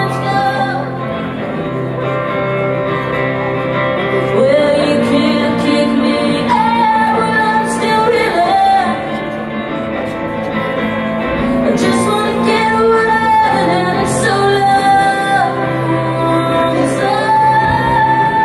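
Live solo rock performance: a woman singing over her own electric guitar through a venue PA, held sung notes gliding between pitches.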